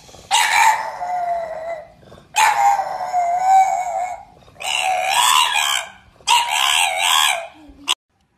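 French bulldog howling: four long, wavering howls, each lasting one to two seconds, with short breaks between them.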